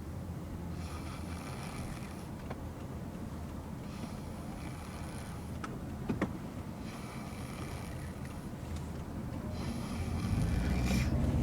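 A sleeping child snoring in slow, regular breaths, four of them, each about a second and a half long and about three seconds apart, over a steady low rumble that grows louder near the end.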